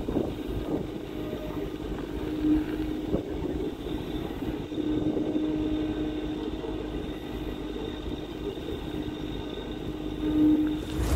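Carter CT30 mini excavator running under load while digging a trench, engine and hydraulics working steadily, with a thin whine that comes and goes a few times.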